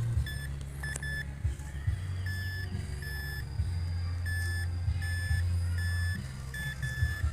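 Metal detector beeping in short high tones at irregular intervals as it is swept over the ground, over a steady low hum.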